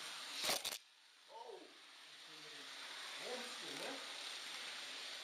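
Faint, unclear talk of people in the room over a steady hiss. About half a second in there is a loud crackle, after which the hiss drops out suddenly and slowly comes back.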